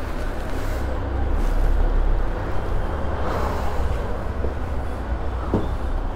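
Road traffic noise: a steady low rumble that swells for a second or two about two seconds in.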